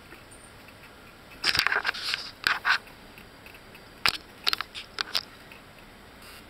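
Crackling, scraping and clicking as a baby clambers over the padded fabric top rail and plastic corner cap of a mesh travel cot. The noises come in two bursts of short clicks, the first about a second and a half in and the second, sharper, about four seconds in.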